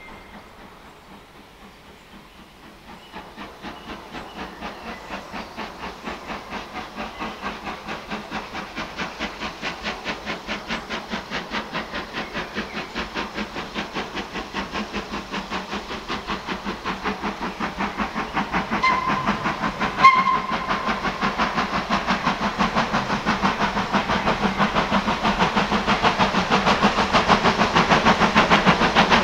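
BR Ivatt Class 2MT 2-6-2 tank locomotive working under steam, its exhaust beats starting up a few seconds in and growing steadily louder as it approaches. Two short whistle toots sound about two-thirds of the way through.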